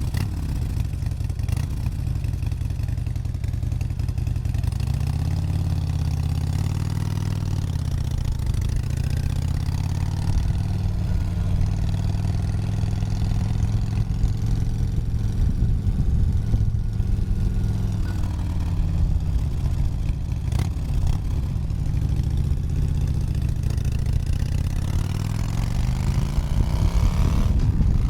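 Harley-Davidson motorcycle's V-twin engine running steadily, its pitch drifting a little up and down, then climbing as it revs up near the end.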